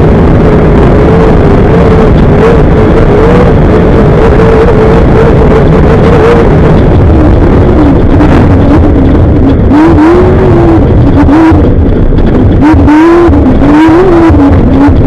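Off-road race vehicle's engine running loud at high revs. The pitch holds steady for the first half, then from about halfway it falls and climbs again and again as the throttle comes off and back on.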